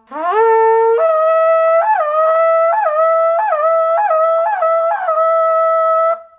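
A blown horn call: one loud note that slides up at the start, then steps to a higher held note with about six quick upward flicks in pitch, and stops near the end.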